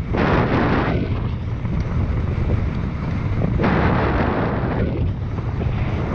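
Wind buffeting the microphone along with the rumble and rattle of a mountain bike rolling over dry, rocky dirt trail, the rougher clatter coming and going as the ground changes.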